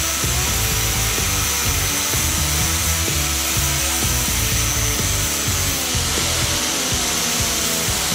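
Angle grinder with a thin cut-off disc cutting through coiled steel rod held in a vise: a steady high-pitched whine with hissing grinding, over background music.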